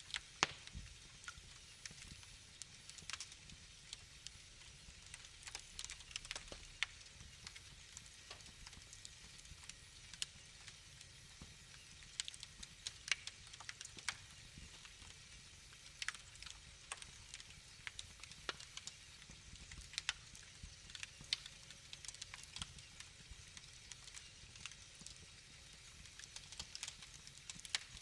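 Wood fire in a fireplace crackling: irregular sharp snaps and pops over a soft, steady hiss.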